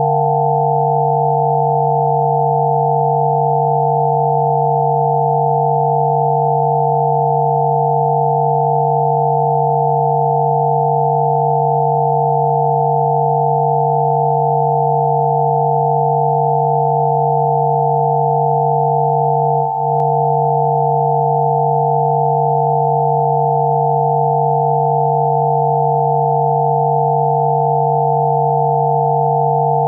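Synthesized pure tones of a 'healing frequency' track: a low tone and several higher ones held together at a constant pitch and level. A brief dropout with a faint click comes about twenty seconds in.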